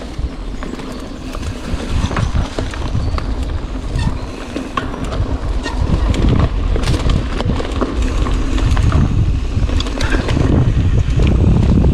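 Rockrider AM 100S mountain bike riding over a rough trail: wind rumbling on the microphone, with frequent sharp clicks and knocks from the bike rattling over the ground, growing louder as the ride goes on.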